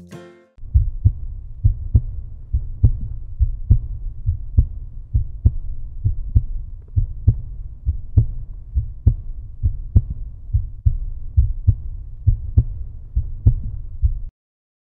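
A deep, thudding heartbeat-like beat, a strong thud a little more than once a second with softer beats between, playing under the end card. It starts about half a second in and cuts off suddenly near the end.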